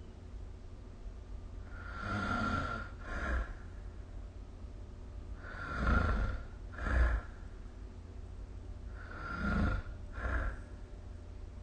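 A sleeping person snoring, three snores about three and a half seconds apart, each a longer sound followed by a short second one. A steady low hum runs underneath.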